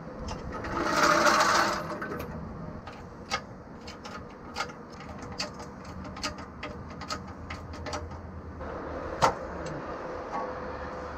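Steel transmission jack rolled across concrete into place under a bus transmission, a scraping rush about a second in. Then a run of light metallic clicks from a ratchet worked at the jack's saddle, and one sharp metal knock near the end.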